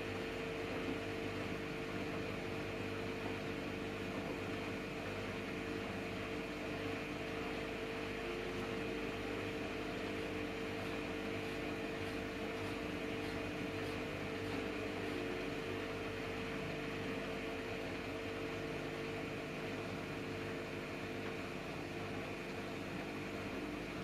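Samsung Eco Bubble front-loading washing machine in its rinse stage, the drum motor running at a steady speed with a steady hum and whine.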